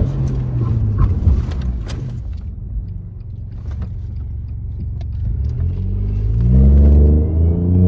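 BMW F20's B38 turbo three-cylinder with a stage 1 downpipe, driven hard: loud on the throttle at first, easing off with a few sharp knocks in the first two seconds. It runs steadier for a few seconds, then revs up, rising in pitch and loudness about six seconds in, before backing off near the end.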